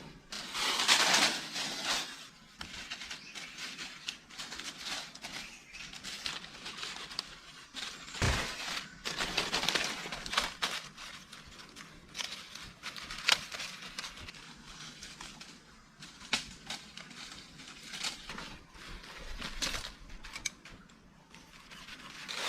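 Rustling and crackling noises in bursts, with scattered sharp clicks and snaps.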